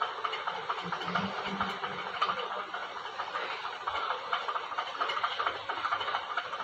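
A perforated steel ladle stirring and scraping rice through watery masala in a metal pot, turning it top to bottom: a steady run of quick scrapes and small ticks.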